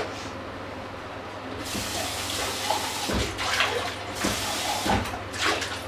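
Kitchen tap running into a sink for a few seconds, starting about two seconds in, with a few low knocks as things are handled under the stream. A low steady hum sits underneath throughout.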